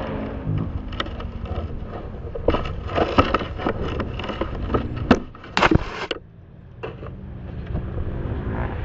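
Kawasaki KX dirt bike crashing: the loud engine revving cuts off and a low engine rumble carries on, then a run of knocks and scrapes as the bike and rider go down into the dirt, the loudest hits a little after five seconds in.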